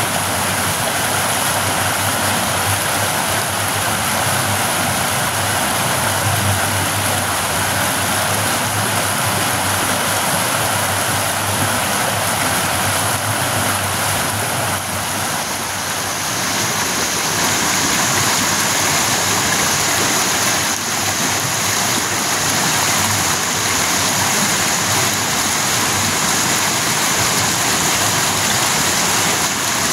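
Steady rush of river water swirling over rocks at the mouth of a culvert and spilling down a small cascade. About halfway through the rush grows a little louder and hissier.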